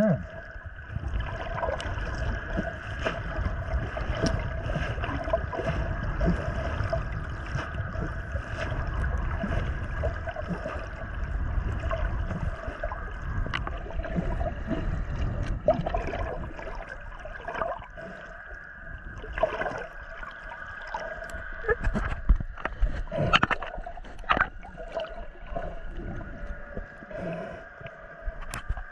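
Water moving and gurgling around a camera held underwater, with a low rumble that is heavier in the first half and a steady hum beneath. Scattered clicks and knocks come in the second half.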